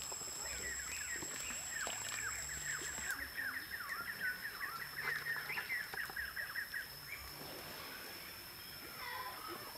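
A bird calling: a long run of short, quick chirps, several a second, which stops about seven seconds in, over a steady high-pitched whine.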